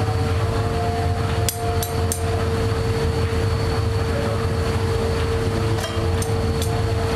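Steady foundry machinery drone with a constant mid-pitched hum, broken by short runs of sharp metal clinks, three about a second and a half in and three more near six seconds, while molten aluminium is ladled into steel casting moulds.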